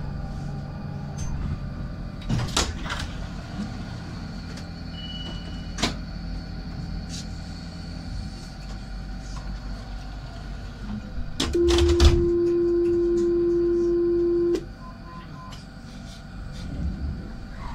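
Citadis 302 tram standing at a stop: clunks and knocks of the doors and equipment over a steady hum, then a loud steady door-closing warning tone sounds for about three seconds and cuts off suddenly.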